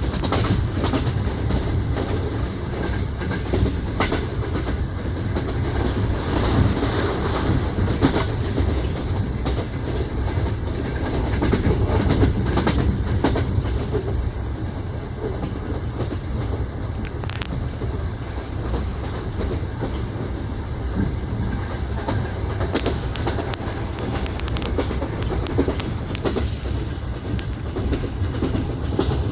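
Wheels of a passenger train knocking over the rail joints, with the carriage's steady running rumble, heard from inside an open-plan sleeping carriage.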